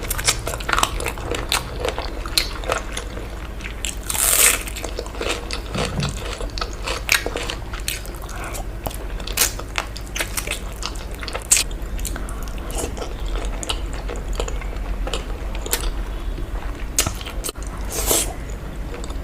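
Close-miked eating: a person biting and chewing food with many crisp crunches and wet mouth clicks. There are two longer breathy bursts, one about four seconds in and one near the end.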